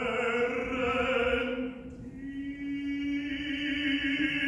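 Operatic solo voice singing two long held notes with vibrato, the second slightly higher than the first.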